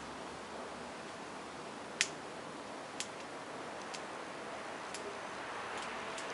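Sharp, short clicks about once a second, the first the loudest, over a steady background hiss.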